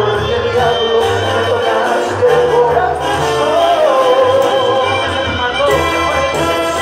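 Live Mexican banda music: a brass band with trumpets playing under singing, carried over a PA and recorded from within the crowd, with a steady line of deep bass notes.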